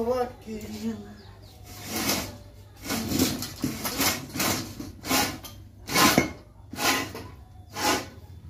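A series of about eight short rasping scrapes, roughly one a second, as the rolling-shutter spring shaft and its metal frame are worked by hand.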